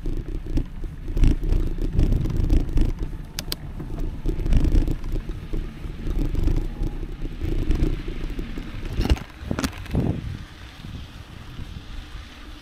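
Mountain bike ridden over a dirt forest trail: a continuous low rumble of tyres on the ground with rapid rattling and knocking from the bike as it bounces over the surface, and a couple of sharper knocks about nine and ten seconds in.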